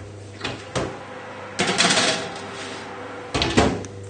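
An oven door clicking open, a metal baking tray sliding in with a scrape, then the door shutting with two clunks near the end.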